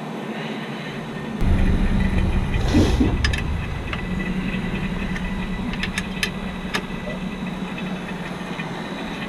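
Electric AC vacuum pump running steadily with a low hum while it pulls vacuum on the air-conditioning system. About one and a half seconds in, a louder low rumble sets in for a couple of seconds, and a few sharp clicks follow.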